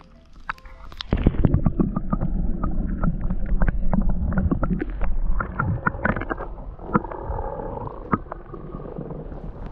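Water heard through an action camera held under the lake surface: a muffled rumbling and gurgling with scattered knocks, starting about a second in as the camera goes under.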